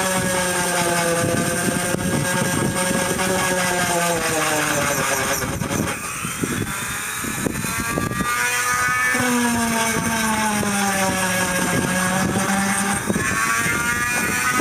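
Dremel rotary tool with a sanding bit running against a dried sheep hide. Its motor whine slowly rises and falls in pitch, and dips briefly about six seconds in.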